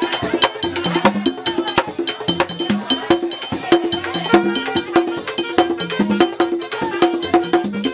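Music with busy, clicking percussion over a short low pitched figure that repeats over and over.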